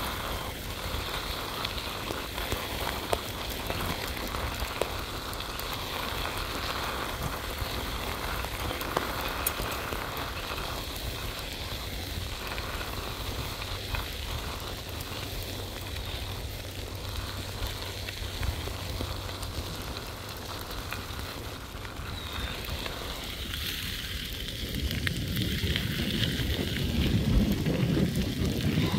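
Bicycle tyres crunching and crackling over a crushed-gravel trail, a steady hiss with many small clicks. Near the end a louder low rumble builds up.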